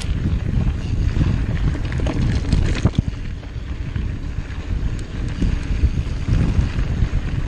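Wind buffeting the microphone of a handlebar-mounted action camera on a mountain bike descending a dirt singletrack, with steady tyre rumble and a few sharp knocks from bumps about three seconds in.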